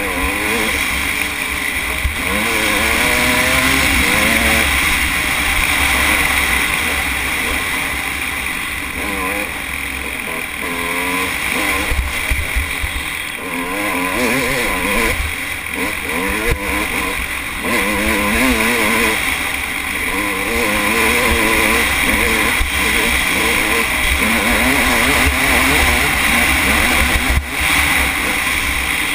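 Off-road dirt bike engine running hard, its revs rising and falling over and over as it is ridden fast on a desert dirt trail, with wind rumble on the bike-mounted microphone.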